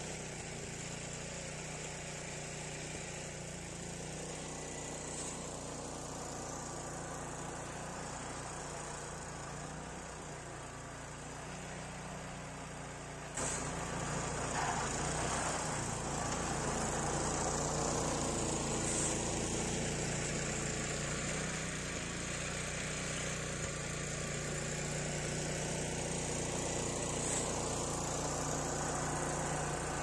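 Walk-behind snowblower engine running steadily while the machine clears and throws snow. About 13 seconds in it suddenly gets louder.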